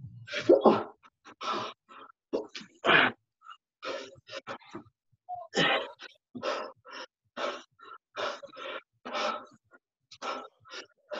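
A person breathing hard during a reverse-lunge interval: a string of short, sharp exhales and gasps, roughly one every half second to second.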